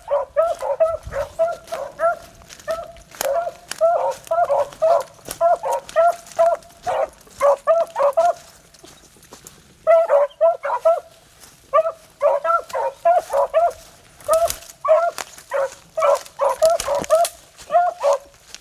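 Beagles baying on a rabbit track: a quick, steady run of short, pitched barks from more than one hound, pausing for a moment about halfway through.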